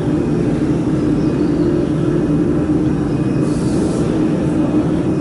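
Steady droning machinery noise with a constant low hum, with a brief soft hiss about three and a half seconds in.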